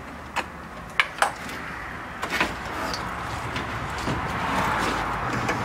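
Old car radiator being worked loose and lifted out of the engine bay: a few sharp clicks and knocks in the first couple of seconds, then a scraping, rustling slide that grows louder from about four seconds in as it comes up out of its mounts.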